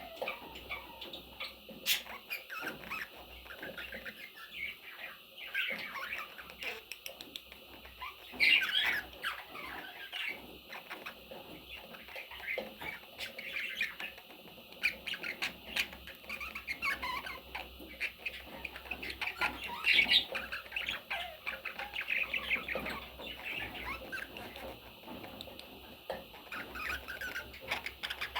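Pet parrots chattering and squawking: a busy run of short calls, with louder squawks about eight and twenty seconds in.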